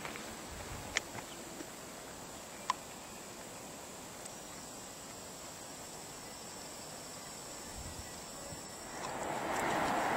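Faint outdoor ambience with a few sharp clicks in the first three seconds; about nine seconds in, a louder steady rushing noise comes in.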